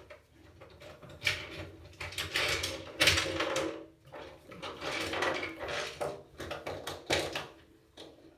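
Irregular scratchy rustling and scraping in bursts, from hands working a bobby pin into box braids.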